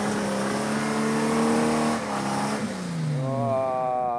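Nissan Patrol's engine revving hard under load as the four-wheel drive claws up a loose sand hill, wheels spinning. The revs hold high for about two seconds, sag about halfway through, then climb again.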